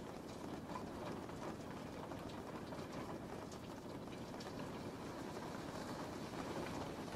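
Steady rain falling, an even hiss with many small scattered drop taps.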